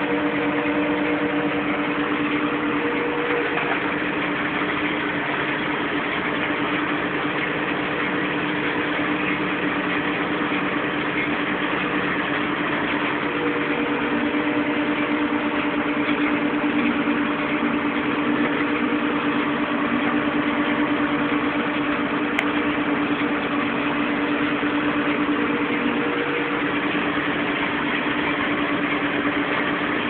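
Landini Blizzard 65 tractor's diesel engine running at a steady speed, heard from inside the cab, with an even drone that does not change.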